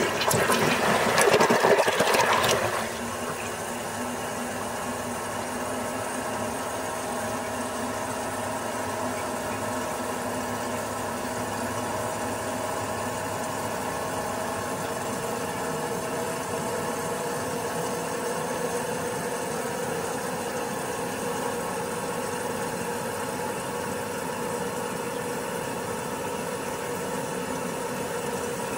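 Toilet flushing, a loud rush of water for about three seconds. It settles into the tank refilling through its fill valve: a steady run of water with a constant whine.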